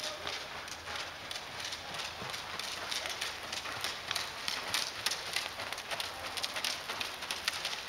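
A pony's hooves striking the dirt footing of an arena as it moves under a rider: a continuous run of quick, irregular hoofbeats.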